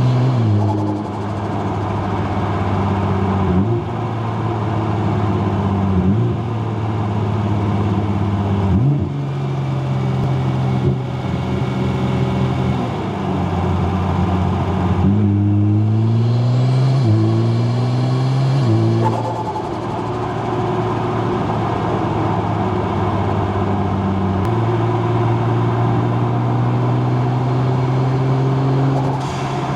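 Nissan GT-R R35's twin-turbo V6 heard from inside the car, running at fairly steady revs through a series of gear changes. From about halfway in, a quick run of shifts steps the engine pitch up several times.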